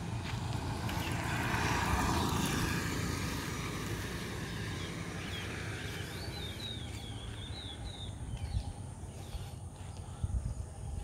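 A vehicle passes, swelling to a peak about two seconds in and fading away, followed by a bird calling a quick run of short high chirps.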